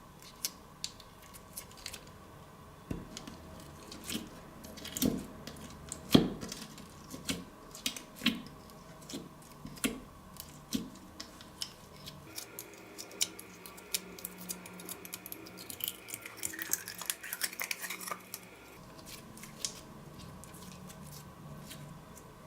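Slime being squished, stretched and folded by hand, giving irregular sticky clicks and wet pops, the loudest about a quarter of the way in.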